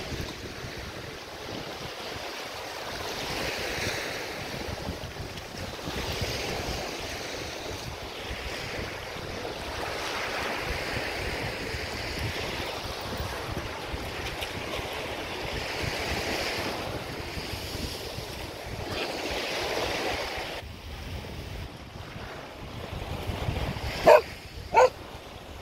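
Small waves breaking and washing up on a sandy shore, swelling and fading every few seconds, with wind rumbling on the microphone. Near the end a dog barks twice, loudly, less than a second apart.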